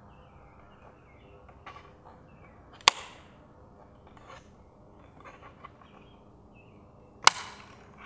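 Sharp plastic snaps and clicks as a plastic trim tool pries an MK7 GTI's mirror LED turn-signal assembly out of its housing. Two loud, very short clicks come about four and a half seconds apart, with faint handling clicks between.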